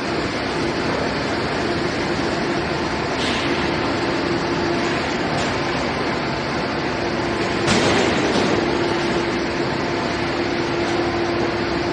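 Aluminium billet homogenizing furnace plant running: a steady, dense mechanical noise with a constant hum, briefly louder about eight seconds in.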